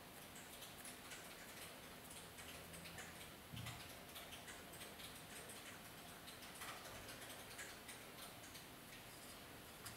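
Near silence with faint, scattered light clicks and ticks, and one soft thump about three and a half seconds in.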